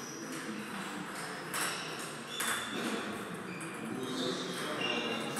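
Table tennis ball bouncing, two sharp clicks about a second and a half and two and a half seconds in.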